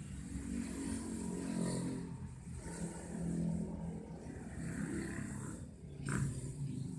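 A motor vehicle engine running and passing, its low pitch rising and falling, with a single sharp click about six seconds in.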